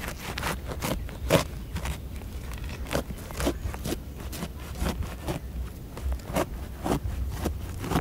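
Knife blade cutting lengthwise through the rind of a whole jackfruit: a string of short, irregular crunching, scraping strokes, about one or two a second, the sharpest about a second and a half in.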